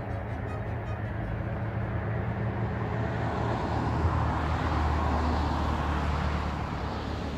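A car driving past on the road, its tyre and engine noise swelling gradually to a peak about five seconds in and then easing off.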